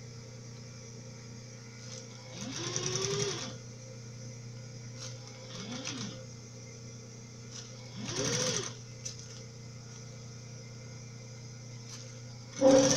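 Electric sewing machine stitching bias binding in short runs. The motor whines up in pitch and back down with each run: three runs of under a second to about a second, then a louder one near the end. A steady low hum runs underneath.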